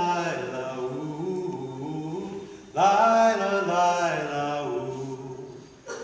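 Unaccompanied wordless singing by several voices in harmony, in held, stepping phrases. A new, loud phrase starts about three seconds in and fades away toward the end.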